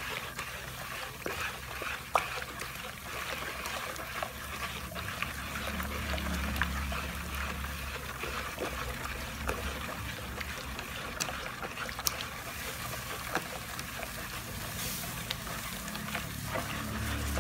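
Liquid being poured and stirred by hand in a plastic bucket: a steady trickling and sloshing, with scattered small knocks.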